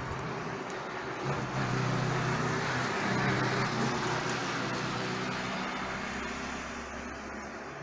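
A motor vehicle driving past on the street: engine hum and tyre noise swell about a second and a half in, are loudest around three seconds, then fade away.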